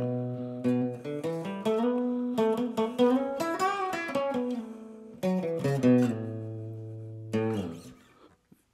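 Guitar played through a Roland DEP-5 digital effects processor on its 'Bright Room' reverb setting: picked notes and chords, with bent notes around the middle. The last notes ring out and fade away shortly before the end.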